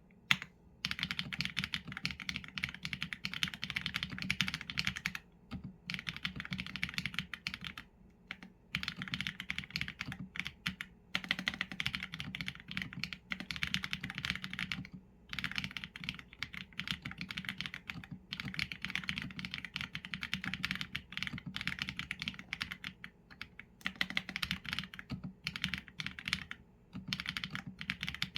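Mechanical keyboard typing on a Qsenn A75 with Leobog Graywood v4 linear switches and PBT keycaps: fast runs of keystrokes broken by short pauses, starting about a second in after a single sharp click.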